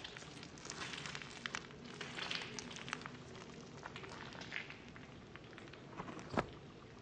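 Soft, stretchy slime being squeezed and stretched by hand, giving faint, irregular crackling and small clicks, with one louder click near the end.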